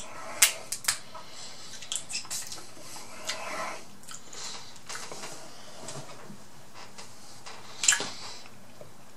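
Cooked Atlantic red crab legs being broken open and picked by hand and eaten: a few sharp shell cracks about half a second in, scattered small clicks and wet chewing, and a louder crack near the end.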